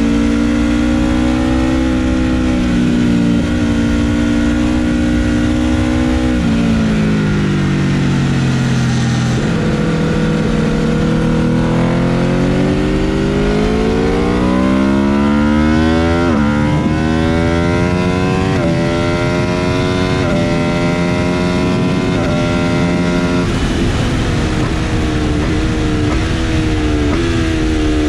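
Aprilia RSV4 RF's V4 engine, heard from on the bike at track speed, with wind rushing over the fairing. The engine note holds, falls for a few seconds as the bike slows for a corner, then climbs hard and steps up through a quick series of upshifts.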